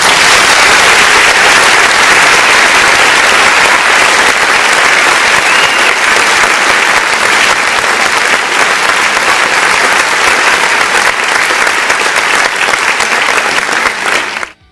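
Crowd applauding: dense, steady clapping held at an even level that cuts off suddenly near the end.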